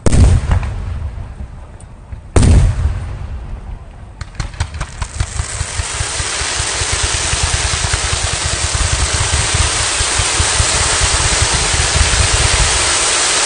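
Fireworks display: two heavy shell bursts about two and a half seconds apart, then from about four seconds in a rapid string of reports that thickens into a dense, continuous barrage of bangs and crackling.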